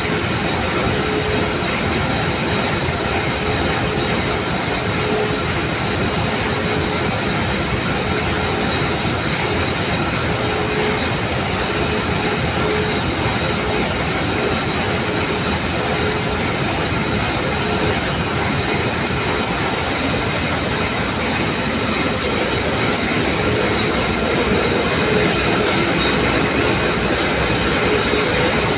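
Karl Mayer warp knitting machines running: a loud, steady mechanical clatter and hum with a constant tone held through it.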